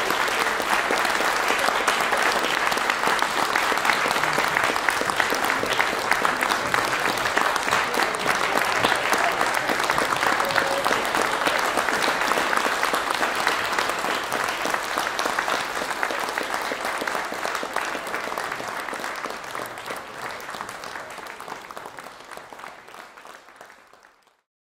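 Audience applauding, many hands clapping at once; the clapping thins and dies away over the last several seconds before the sound cuts off.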